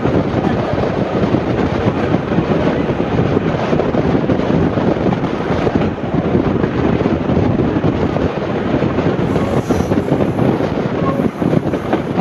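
Passenger train in motion, heard from on board: a steady rumble of wheels on rail, with wind buffeting the microphone.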